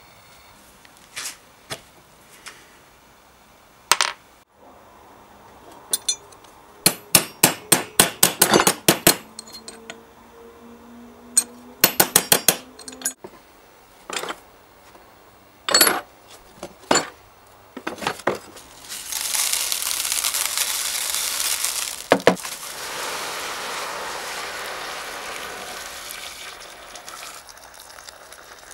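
Metal parts of an old hand grinder clink and clatter as they are handled and dropped into a plastic tub, in several quick runs of clinks. About two-thirds of the way in, water starts pouring into the tub with a steady rush that gets lower and quieter as the tub fills.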